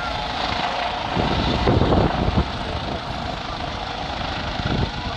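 A Eurocopter EC135-type helicopter flying away: steady rotor thudding with a turbine whine, briefly louder about two seconds in and then easing slightly as it draws off.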